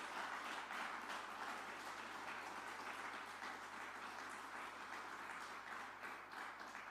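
Audience applauding, a faint, steady clatter of many hands that eases off slightly near the end.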